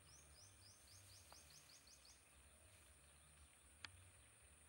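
Near silence: faint outdoor background with a quick run of about ten short, high, rising chirps in the first two seconds, and a single faint click near the end.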